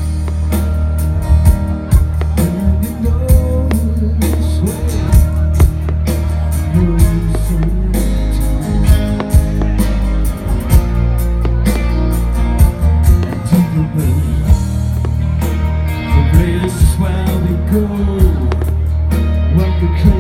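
Loud music played over a sound system: a song with a singing voice over a heavy bass line, with sharp cracks at irregular intervals throughout.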